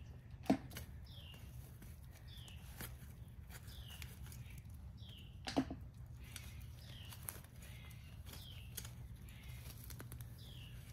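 A bird calling over and over, a short falling note about once a second. Two sharp knocks, the loudest sounds, come about half a second in and just past the middle, over a steady low rumble.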